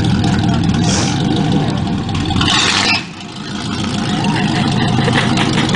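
Vehicle engine running, dropping off suddenly about three seconds in and then building back up, with a short hiss just before the drop.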